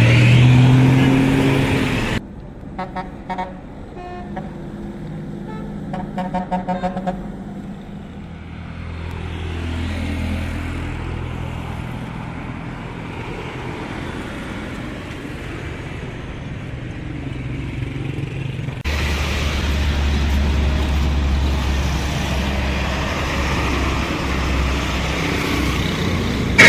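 Bus engine revving up at the start, then two short strings of rapid, repeated horn toots a few seconds in. Engine and traffic noise run underneath, with a louder engine drone over the last third.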